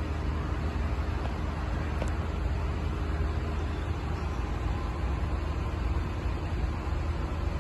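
Steady low engine rumble, unchanging throughout, with faint held tones above it.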